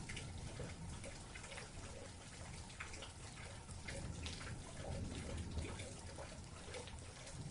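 Steady rain with many separate drops pattering and dripping close by, over a low rumble.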